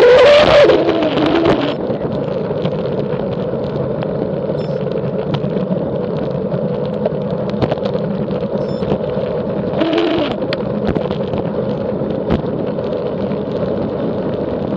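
Bicycle descending at speed: steady rushing wind and tyre noise with a steady droning tone running through it, the strange noise and vibration that comes on while descending. It swells louder near the start and again about ten seconds in, each time with a tone that swoops up and down.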